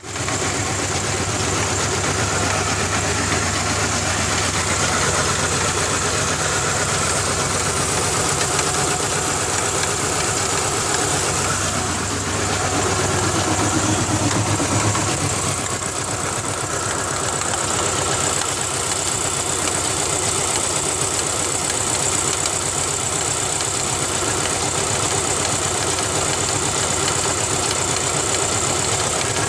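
2000 Ford Ranger's 2.5-litre four-cylinder engine idling roughly, with a slapping noise that the owner traces to the timing belt hitting the timing cover; the engine barely holds its idle.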